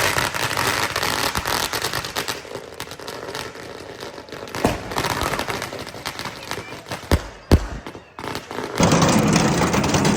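Firecrackers going off in a noisy crowd: a sharp bang about halfway through, then two more close together a couple of seconds later, the second the loudest, with smaller crackles between. The background noise grows louder near the end.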